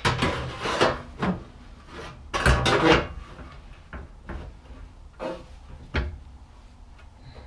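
Steel outer sill panel being handled and offered up to the car's body for a test fit: irregular clunks and scrapes of metal, the loudest cluster a little over two seconds in, then single knocks every second or so.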